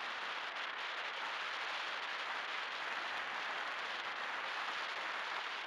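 Steady rushing hiss of air streaming past an onboard camera on a model FPV plane in flight, with no motor tone standing out.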